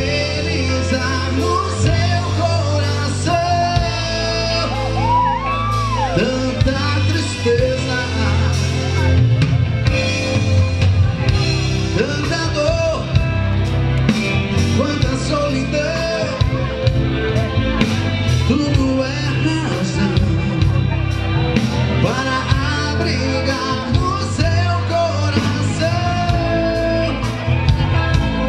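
Live band music: a male lead singer over a drum kit and keyboards, with regular drum hits and sustained low notes underneath.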